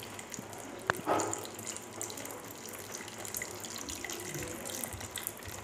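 Custard-and-milk mixture poured in a steady stream from a glass bowl into a pan of cooking vermicelli while a wooden spoon stirs, with a single sharp click about a second in.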